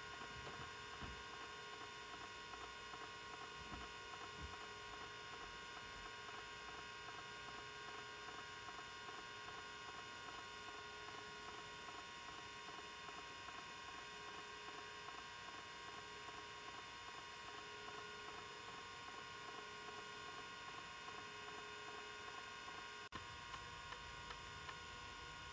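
Steady hum with several held whining tones from a running Miniscribe 3425 20 MB MFM hard drive and the 286 computer it is connected to, the drive spinning while a disk surface scan reads it.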